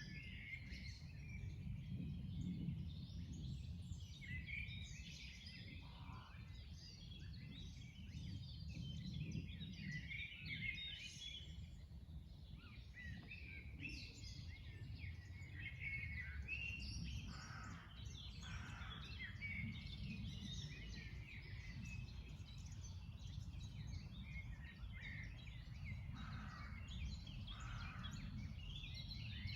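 Many songbirds singing and chirping at once in a continuous spring chorus of overlapping high twitters and trills, over a steady low rumble.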